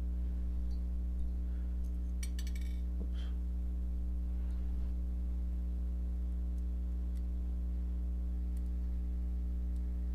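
A steady low electrical hum, over which small metal knife parts and a screw click faintly as they are handled, with a quick run of clicks about two seconds in.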